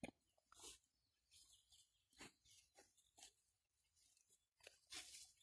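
Near silence outdoors, broken by a few faint, brief ticks.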